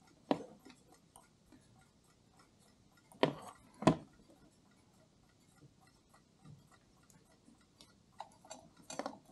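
Faint, steady ticking of a running clock, with a few sharp metallic clicks and knocks as the brass parts of a clock movement are handled and taken apart. The loudest knock comes about four seconds in, and lighter clicks follow near the end.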